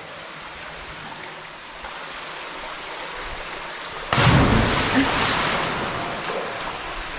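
A person jumping into a rock pool: a sudden loud splash about four seconds in, then water churning and settling over a steady hiss of moving water.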